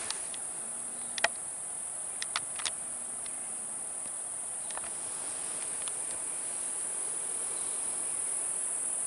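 Steady, high-pitched insect trilling in the woods, with a few sharp clicks about one to three seconds in.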